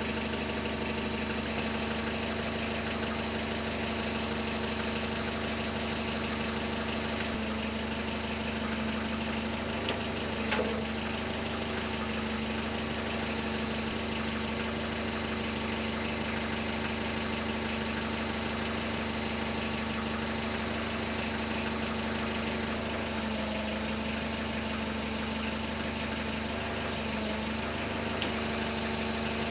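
An engine running at a steady speed, with a brief knock about ten seconds in and small dips in engine speed in the later part.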